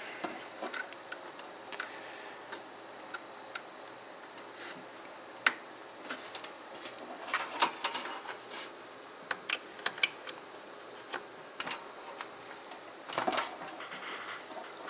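SATA data cable being handled and fitted to a hard drive inside a PC case: scattered light plastic clicks and taps, with brief rustling and scraping a couple of times.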